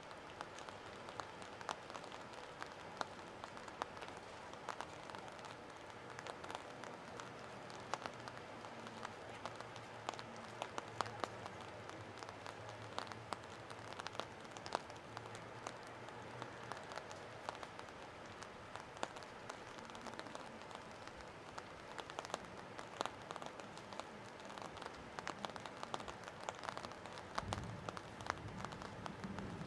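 Rain falling, an even hiss with many small sharp drop ticks, and a faint low hum in the middle. Near the end, a brief low rumble.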